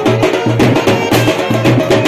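Loud music with a quick, steady drum beat under a sustained melody.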